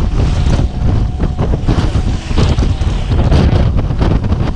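Wind buffeting the microphone: a loud, uneven low rumble that flutters up and down.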